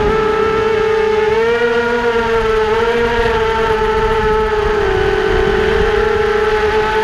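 Steady whine of a small radio-controlled aircraft's electric motors and propellers, recorded on board. The pitch rises and dips slightly with the throttle, over a low wind rumble.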